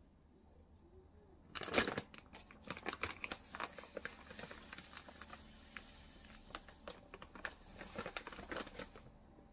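Crinkling and rustling of packaging being handled, a dense run of crackles that starts about one and a half seconds in, is loudest at first, and carries on until shortly before the end.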